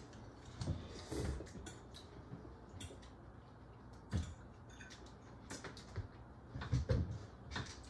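Forks and serving spoons clicking and scraping on dinner plates while a family eats, in scattered light knocks with no regular rhythm.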